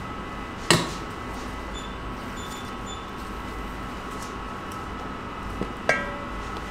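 Steady machine hum with a few faint steady tones, broken by two sharp knocks, one under a second in and one near the end, the second with a brief metallic ring: baumkuchen rings and cardboard bases being handled against a stainless steel counter.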